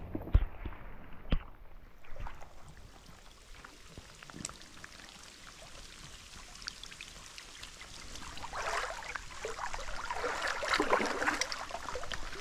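Creek water splashing and sloshing as a small brook trout is brought in and landed by hand, the splashing heaviest over the last few seconds. A few sharp knocks sound in the first two seconds.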